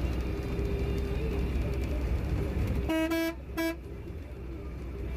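Steady low engine drone heard from inside a large vehicle's cab, broken about three seconds in by two short vehicle-horn toots, a longer one and then a brief one.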